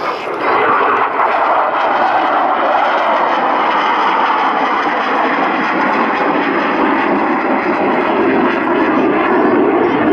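Twin Klimov RD-33 turbofans of a MiG-29 fighter in a display flypast: a loud, steady jet roar that deepens toward the end.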